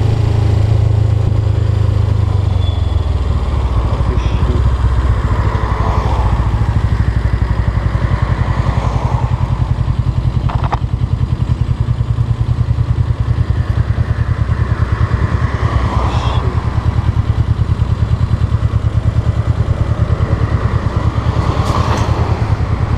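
Suzuki GS500E's air-cooled parallel-twin engine running steadily at low revs, heard from the rider's seat while riding in slow traffic. There is a single sharp click about ten and a half seconds in.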